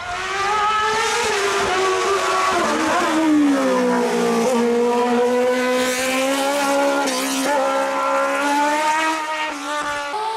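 Open-wheel single-seater race car's engine running at high revs, its pitch falling and climbing as the car brakes and accelerates through the slalom, with a brief break about seven seconds in.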